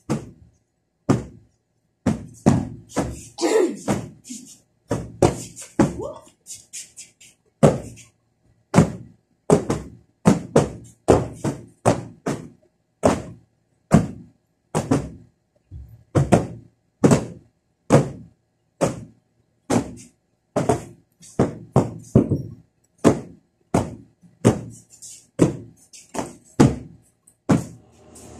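Heavy upholstered floor cushions thudding again and again as they are lifted, knocked about and piled, about one dull thud a second, some in quick pairs.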